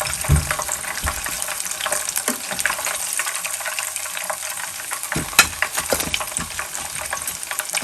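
Chicken wings coated in Japanese-style breadcrumbs deep-frying in hot oil: a steady, dense sizzle full of fine crackles. A few low knocks sound over it, the loudest about five seconds in.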